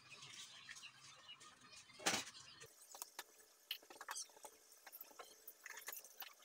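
Light clicks and scrapes of small starter-motor parts being handled during cleaning and regreasing, with one short, louder noisy rustle about two seconds in.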